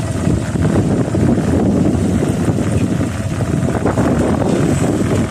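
Steady rumble of a moving vehicle, recorded from on board, with wind buffeting the microphone.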